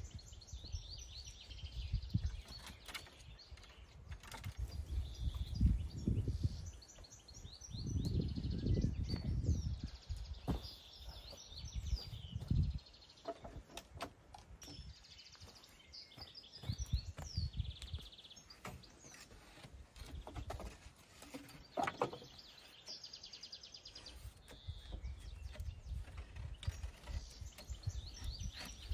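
Songbirds chirping and trilling over and over, with irregular low thumps, knocks and rustling from nearby handling.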